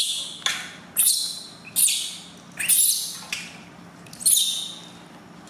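Newborn baby monkey crying very loud with repeated shrill screeches, about one a second, each starting sharply and trailing off, in distress at its first bath.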